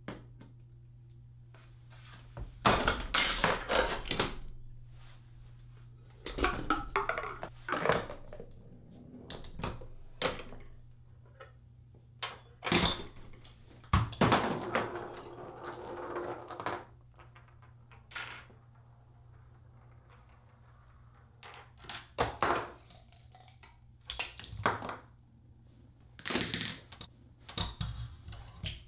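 A tabletop chain-reaction contraption (Rube Goldberg machine) running: a string of knocks, clacks and rattles from wooden, glass and metal parts tipping, dropping and striking one another, in bursts with short pauses between, including a longer stretch of rolling and scraping midway. A steady low hum runs underneath.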